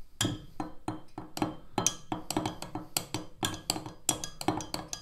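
A metal utensil stirring dye into hot liquid plastisol in a Pyrex glass measuring jug, clinking rapidly against the glass about five times a second, each clink with a short ring.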